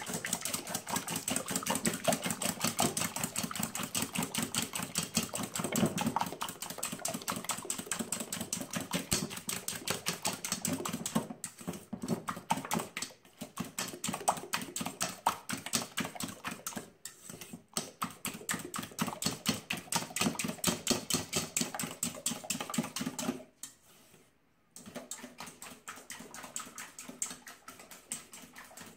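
Wire whisk beating eggs and oil in a stainless steel mixing bowl: a rapid, steady clatter of the wires against the metal, broken by a few short pauses, the longest about 24 seconds in.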